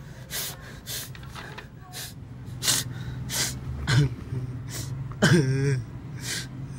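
A man sobbing: sharp noisy breaths and sniffs over and over, with a short wavering cry about five seconds in.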